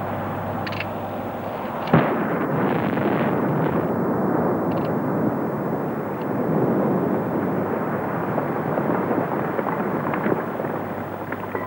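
Open-pit iron ore mine production blast loosening ore at the mine face: a sharp crack about two seconds in, then a long, continuous rumble as the charges go off along the bench.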